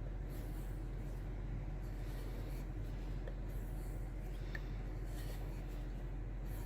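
A knife blade drawn over a strop loaded with 1-micron diamond paste: soft, repeated rubbing strokes. A steady low hum runs underneath.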